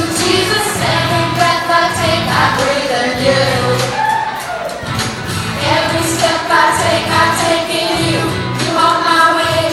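Upbeat song with a group singing over instrumental accompaniment with a steady beat.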